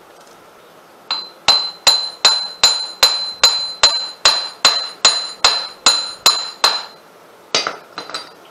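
A hammer striking the rear axle of a John Deere 4300 tractor, metal on metal: about fifteen steady blows a little over two a second, each with a ringing clang, then a short pause and a few lighter blows near the end. The blows are knocking the axle shaft to drive it out of the housing, to free the worn wheel bearing and leaking axle seal.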